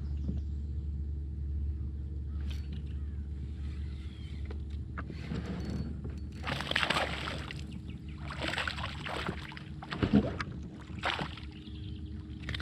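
A boat's motor runs steadily with a low hum. In the second half it is joined by several louder rushes of water splashing and sloshing.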